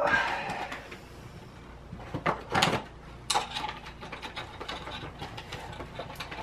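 Items and packaging being handled: a burst of rustling at the start, more rustling twice a little after two seconds in, and scattered small clicks between.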